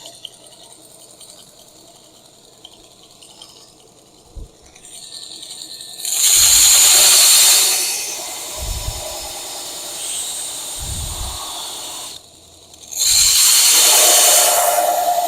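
Belt sander grinding a steel knife blank: two loud, hissing grinding passes of about two seconds each, with the sander running more quietly between them.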